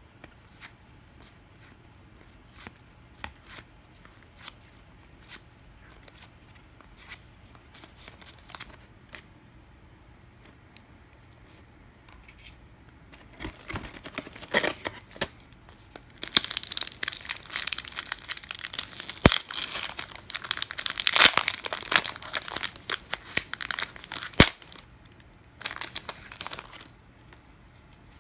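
Light scattered clicks and taps of trading cards being handled. About halfway in, a baseball card pack wrapper is torn and crinkled loudly for several seconds.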